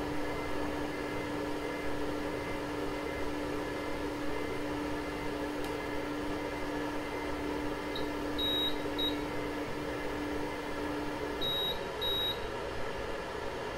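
Anycubic Photon's Z-axis stepper motor humming steadily as it lowers the build plate to its home position, stopping about eleven seconds in. Just after it stops, the printer gives two short high beeps. A few similar beeps come a few seconds earlier.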